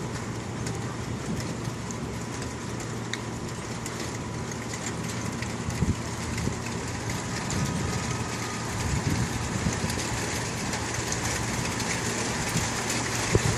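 Heavy rain falling and hissing steadily, with scattered ticks of drops and a steady low hum underneath.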